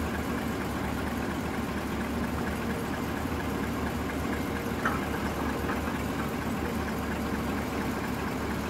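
Diesel engine of heavy logging machinery running steadily at low revs, with one sharper knock about five seconds in.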